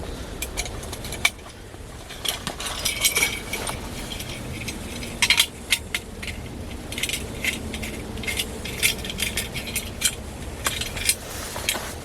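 Metal camp pans and utensils being handled: a scattered series of sharp clinks and knocks, some ringing briefly.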